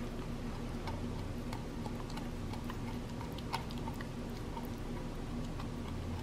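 Dog gnawing on a chew bone: irregular small clicks and crunches of teeth on the bone, a few each second.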